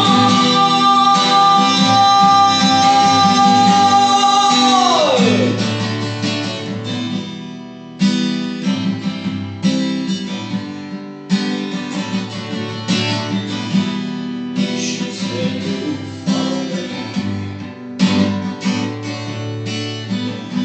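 Music: a long held note that slides down and ends about five seconds in, then acoustic guitar strummed chords.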